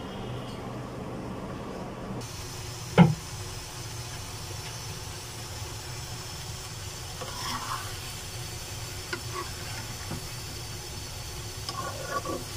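Pieces of eggplant and potato sizzling in a pan while a spatula stirs them, with light scrapes of the spatula and one sharp knock about three seconds in.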